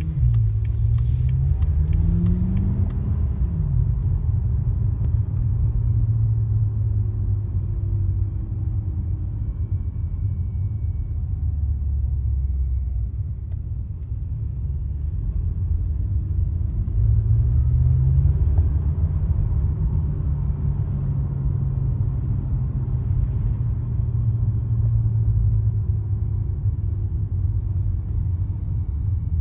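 BMW car running with a steady low rumble and a faint whistle above it. The engine speed rises briefly twice, a couple of seconds in and again just past halfway.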